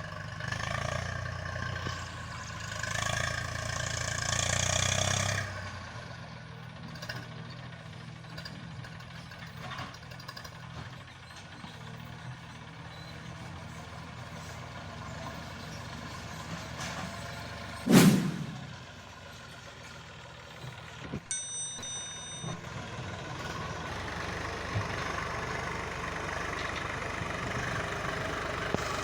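Diesel engine of a JCB 3DX backhoe loader working, revving for the first few seconds and then running lower before rising again near the end. One loud sudden bang comes about eighteen seconds in, and a short run of high beeps a few seconds later.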